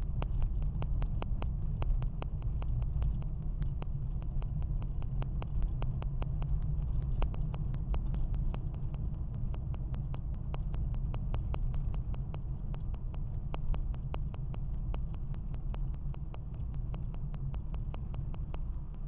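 Car interior noise while driving: a steady low rumble of engine and tyres on the road, heard from inside the cabin, with many faint sharp ticks scattered through it.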